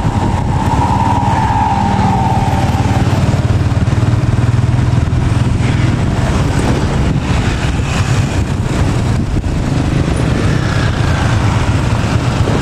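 A small motorcycle engine running steadily while riding along a street, with the noise of surrounding scooters and cars.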